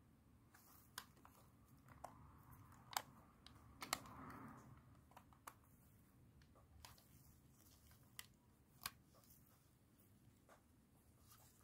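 Quiet handling of a Sony WM-EX382 cassette Walkman's plastic case by gloved hands: scattered light clicks and taps, with a brief rustle about four seconds in. The clicks near the end come as the cassette door is opened.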